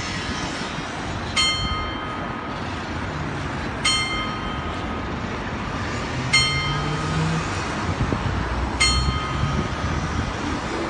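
Little Ben clock tower's bell striking twelve noon: four single strokes about two and a half seconds apart, each ringing and fading, over steady street noise.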